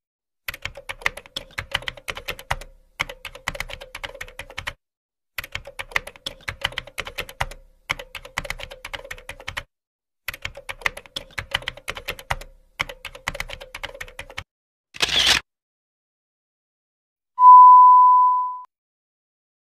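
Typing sound effect: rapid key clicks in six runs of about two seconds each as text types onto a title card, followed by a short burst of noise. Near the end, a steady test-tone beep lasting about a second, over television colour bars.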